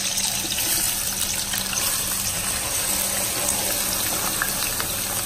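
Sliced chicken sausages sizzling steadily in hot coconut oil in an aluminium pan as the pieces are tipped in.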